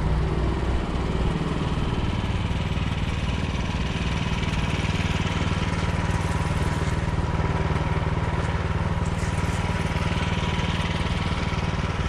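Gas snowblower engine running steadily at a constant speed.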